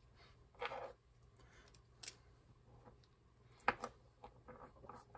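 Faint clicks and taps of small metal parts (washer, bearing and screw) being handled and fitted onto a knife maker's center-line scribe, with two sharper clicks close together a little past halfway.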